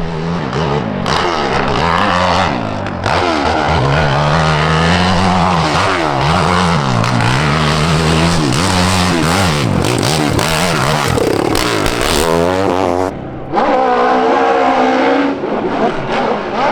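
High-horsepower hillclimb motorcycle engine revving hard, its pitch rising and falling again and again as the throttle is worked on the climb. The sound breaks off abruptly about 13 seconds in and gives way to a different, steadier engine note.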